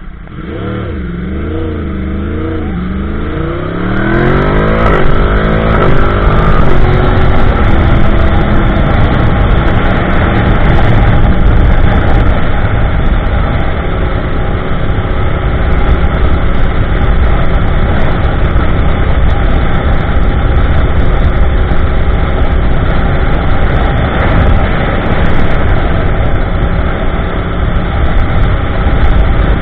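2015 Yamaha YZF-R1M's crossplane inline-four, breathing through an Akrapovic slip-on, an MJS link pipe and factory headers, pulls away from a standstill. Its pitch rises and falls through several quick gear changes over the first few seconds. After that it cruises at speed, the engine note under a loud steady rush of wind.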